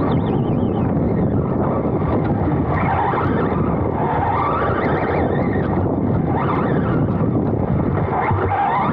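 On-board sound of a Serpent SRX2 2wd electric RC buggy racing over grass: a steady rush of wind on the microphone and chassis rumble, with the electric motor's whine rising and falling several times as it accelerates and brakes through the corners.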